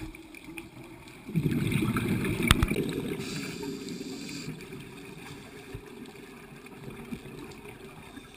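Muffled underwater sound from a camera in the water. About a second in comes a loud burst of low bubbling rumble from a scuba diver's exhaled regulator bubbles, which fades over the next few seconds, with a sharp click in the middle of it.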